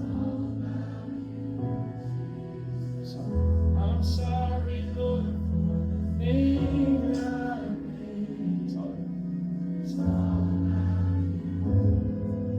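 Live worship music: sustained chords over deep bass notes that shift every few seconds, with voices singing.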